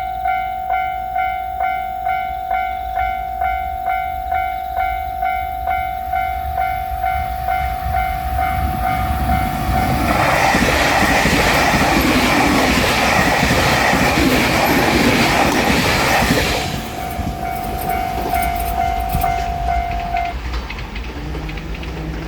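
A Japanese level-crossing warning bell rings with a clanging strike about twice a second. From about ten seconds in, a JR Shikoku 8000 series limited express electric train rushes through with rail clatter for about six seconds. The bell stops a few seconds after the train has passed.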